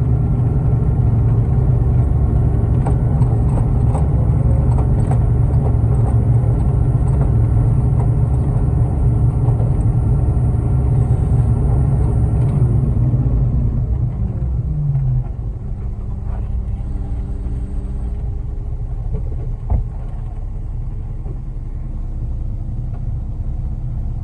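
Concrete mixer truck's diesel engine running at raised revs, then dropping back toward idle about fourteen seconds in and running on more quietly, with one sharp click near the end.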